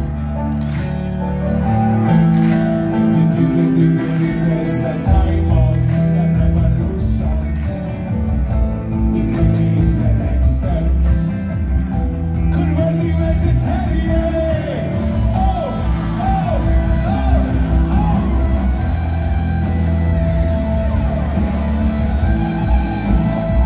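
Live band music played loud through a concert hall's PA and heard from within the crowd: a heavy bass line and drums, with guitar and a singing voice over them.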